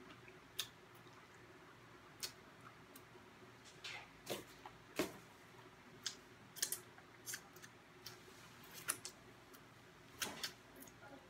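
Faint mouth sounds of someone eating fried chicken wings: irregular wet clicks and smacks of chewing and of licking sauce off her fingers, about a dozen scattered through.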